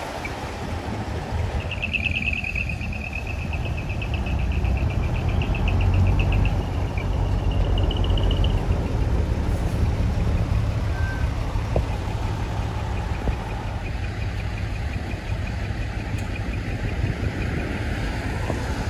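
Large diesel trucks with custom art-truck decoration idling and driving slowly past, a steady low engine rumble. A high, rapidly pulsing tone runs for several seconds near the start, and more faintly later on.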